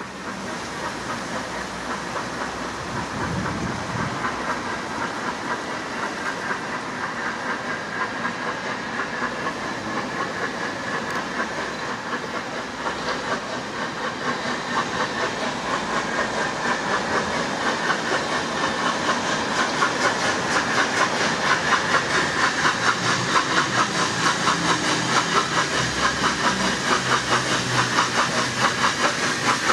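NGG16 Beyer-Garratt steam locomotive No. 87 working a train, its exhaust beating in an even rhythm over a steady steam hiss. It grows steadily louder as it approaches, loudest near the end.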